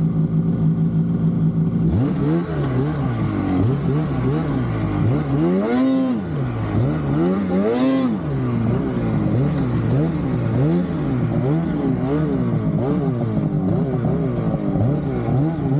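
Polaris RMK Khaos snowmobile's naturally aspirated two-stroke engine, running at a steady pitch and then throttled up and down over and over, its pitch rising and falling about once a second, with two higher revs about six and eight seconds in.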